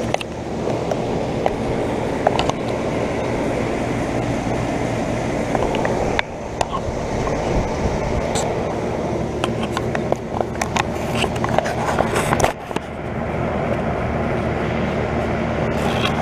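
A 1998 2.5-ton R22 central air conditioner's outdoor condensing unit running: a steady compressor hum under the rush of the condenser fan. Scattered light clicks and two brief dips in level, about six and twelve seconds in.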